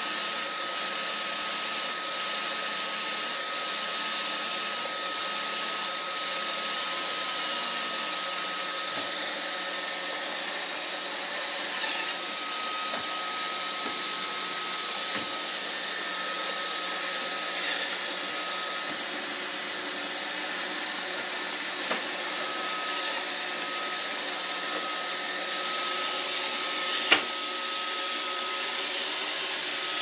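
iRobot Roomba robot vacuum running, its motor and brushes making a steady noise with a thin high whine over it. A few sharp knocks come through as it jams against the chair legs around it, the loudest near the end.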